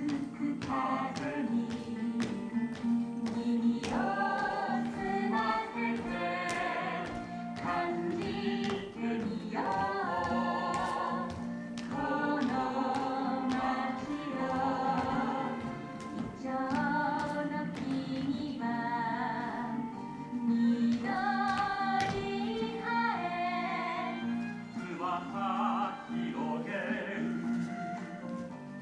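Music: a choir singing a song with instrumental accompaniment and a steady beat.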